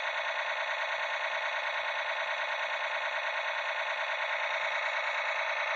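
Small electric gear motor of a toy RC tank turning its turret, a steady high whirring buzz with a fine fast flutter.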